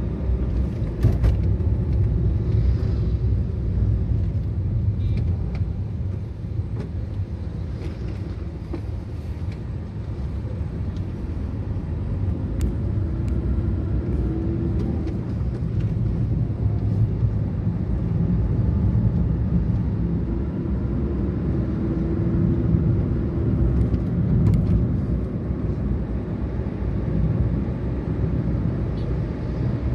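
Car driving along a road, heard from inside the cabin: steady low engine and tyre rumble, with a few faint clicks.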